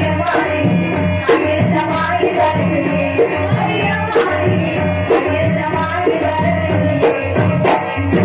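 Live Tamil stage-drama music: hand drums keep a steady beat, with a strong stroke about once a second, under held melody notes.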